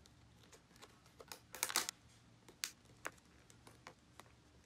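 Duct tape being pulled and wrapped around the necks of two plastic bottles: scattered short crackles and clicks, with a brief ripping stretch a little under two seconds in.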